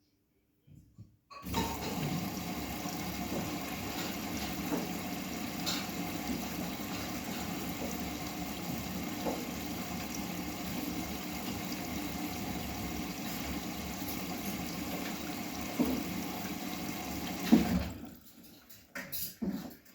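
Bosch WGA25202TR washing machine taking in water: a steady rush of water flowing in that starts suddenly about a second and a half in and cuts off sharply near the end, followed by a few clicks and knocks.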